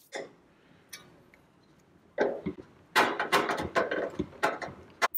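A screwdriver and hands knocking and scraping against the sheet-metal body of an Oster toaster oven being taken apart. A couple of light clicks come first, then from about two seconds in a busy run of knocks and rattles.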